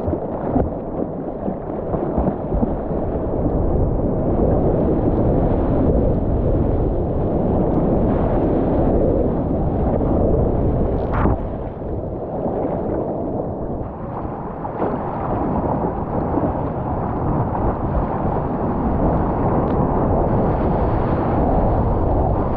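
Sea water rushing and splashing around a surfboard as it is paddled prone through choppy water, with wind buffeting the microphone. A sharp splash or knock stands out about eleven seconds in.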